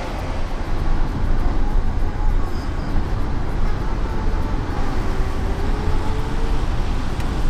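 Steady road and tyre rumble of a moving car, heard from inside the cabin.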